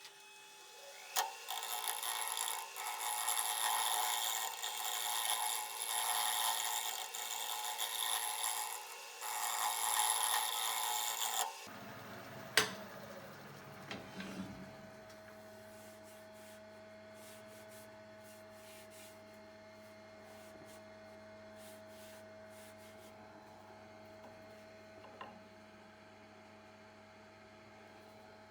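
Scraping strokes of an abrasive tool on wood, swelling and fading for about ten seconds. The scraping cuts off suddenly and gives way to a quieter steady hum, with one sharp knock and a few light clicks.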